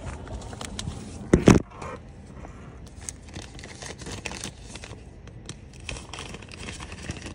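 A bag of plastic name-tag holders being opened and rummaged through: crinkling and rustling handling noise, with one louder burst about one and a half seconds in.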